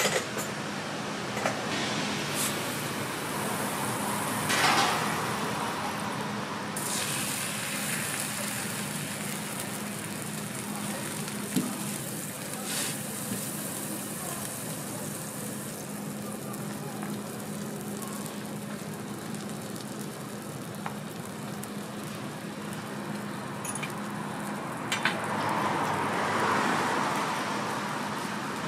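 Food sizzling on a hot flat-top steel griddle as bagels, ham and fat cook, over a steady low hum. The sizzle swells briefly about five seconds in and again near the end, with a few sharp clicks of metal utensils on the griddle.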